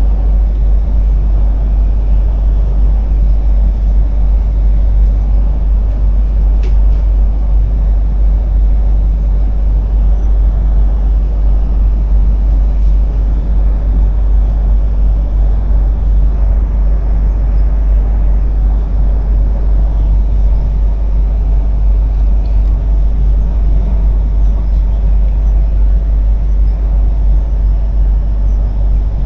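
Bangkok Airport Rail Link train running, heard from inside the carriage: a steady, deep rumble with a faint steady hum over it.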